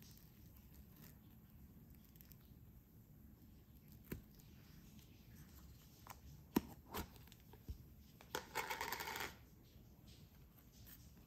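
A white plastic cream cheese tub being handled and opened: a few light plastic clicks and taps, then a short crackly rustle as the lid comes off, about nine seconds in.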